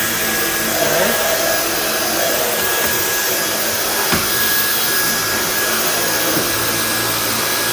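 Dyson V10 Cyclone cordless stick vacuum running steadily at full suction, a constant rush of air with a thin high motor whine. One faint knock about four seconds in.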